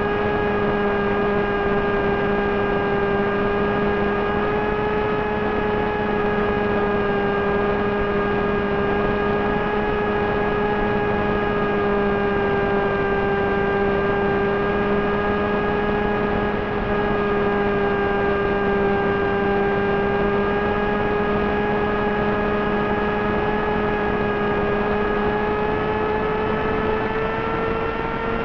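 Multistar Elite 2204 brushless motor driving a 6x3 Gemfan pusher propeller on an FPV flying wing, running at steady cruise throttle: a steady hum with a higher whine over it. The pitch rises a little near the end as the wing dives and picks up speed.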